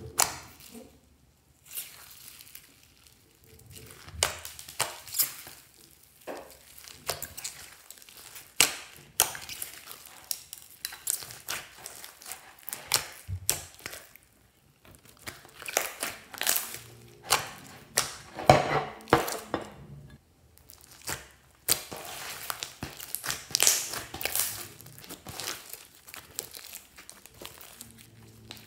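Hands squishing, stretching and poking slime, giving irregular crackles and pops that come in bunches with short pauses between.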